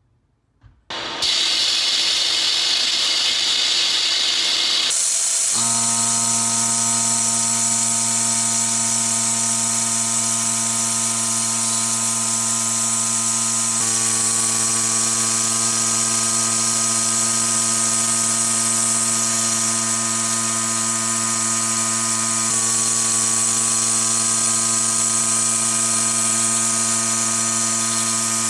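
A power tool switches on about a second in and runs steadily under load, a constant motor whine under a high hissing, grinding noise.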